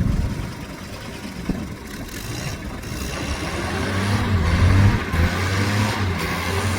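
Ford GPW jeep's four-cylinder flathead engine revving under load as it works over an off-road obstacle. It builds from about halfway through, peaks, then holds steady.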